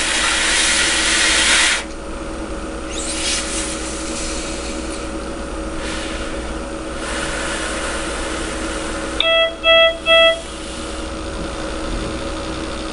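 A breath blown out through a nasal cannula into a CO2 sampling line: a hiss of about two seconds at the start, then fainter breaths. About nine seconds in, the Edan iM patient monitor sounds three short beeps, a three-pulse alarm tone, over a steady electrical hum.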